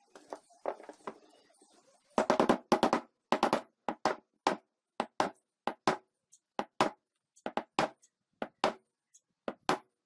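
A steel hammer tapping a ball bearing into a polished motorcycle front wheel hub: a steady series of sharp metal-on-metal taps, about two a second, the first few the heaviest. Before the tapping starts there are a few light clinks as the bearing is set in place.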